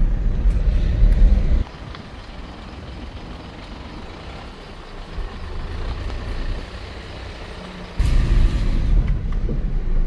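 Low rumble of a Tata Tiago hatchback driving slowly, heard inside the cabin. About a second and a half in, it drops to a much quieter, even hiss, and the rumble returns about eight seconds in.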